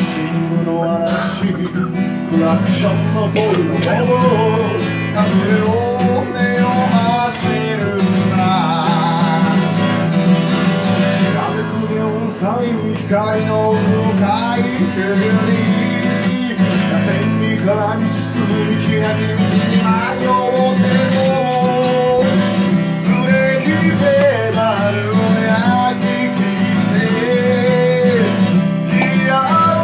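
Acoustic guitar strummed steadily under a man singing a melody.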